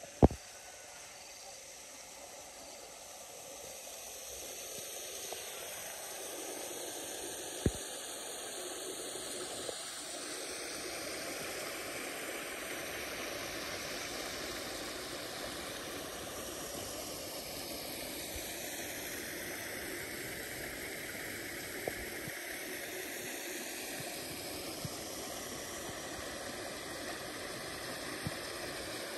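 Small ornamental rock waterfall splashing into a swimming pool: a steady rushing hiss of falling water that swells over the first few seconds, then holds. A sharp click right at the start and a few fainter clicks later.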